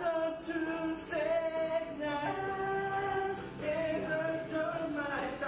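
Singing, mostly unaccompanied, in long held notes that step from one pitch to the next.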